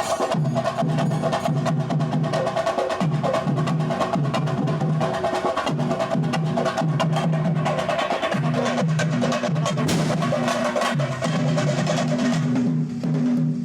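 Sinkari melam, a Kerala percussion ensemble of chenda drums with cymbals, playing a fast, dense, unbroken rhythm.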